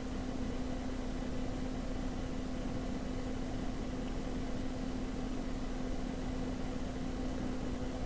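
Steady background hum and hiss with one constant low tone, unchanged throughout and with no distinct handling clicks.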